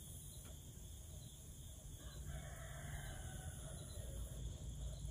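A rooster crowing faintly, one long call starting about two seconds in, over a low steady rumble.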